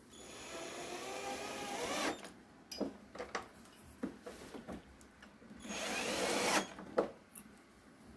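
Electric fan motor spinning up twice with a rising whine, each run cut off after a second or two, with clicks and knocks in between. The motor now turns freely, no longer seized.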